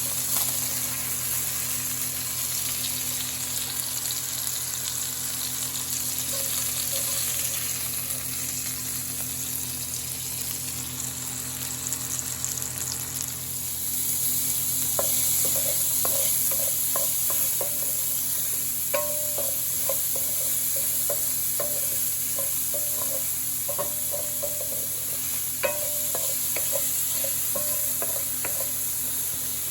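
Food sizzling in a cooking pot, the sizzle growing louder about halfway through. A utensil then stirs and knocks against the pot in quick, irregular taps.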